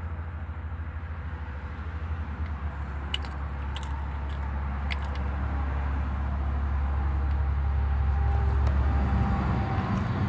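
Steady low rumble of passing road traffic, swelling about eight seconds in as a vehicle draws near. A few sharp clicks sound between about three and five seconds in.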